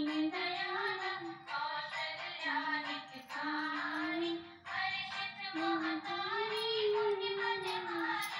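A song playing, with a high voice singing a flowing melody that holds and glides between notes.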